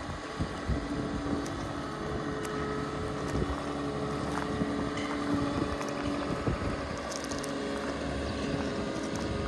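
Komatsu WA270 wheel loader's diesel engine running steadily with a constant hum as the loader drives slowly across gravel, with wind buffeting the microphone.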